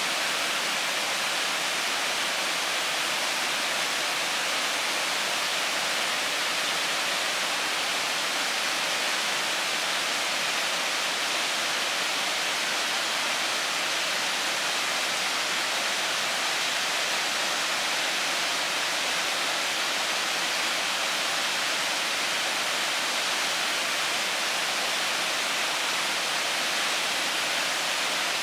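Mountain stream rushing over rocks and boulders in a steady whitewater roar, even and unbroken throughout.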